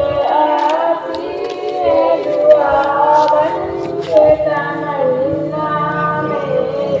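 A voice singing a slow devotional melody without instruments, with long held, wavering notes.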